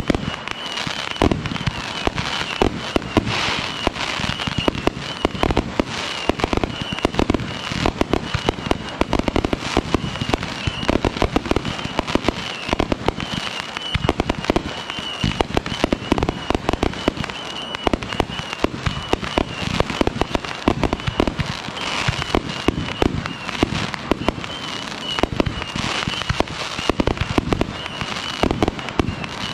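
Consumer aerial firework cake firing a continuous barrage: dense, rapid bangs and pops of shells launching and bursting, with crackle between them. A faint, high, wavering tone sits under the shots.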